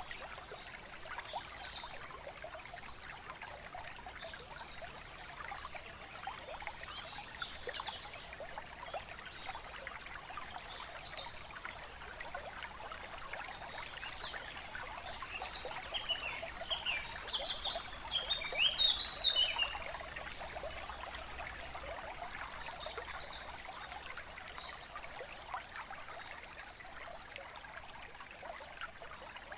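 Steady flowing water like a trickling stream, with birds chirping now and then. The chirps grow into a brief, louder flurry a little past the middle.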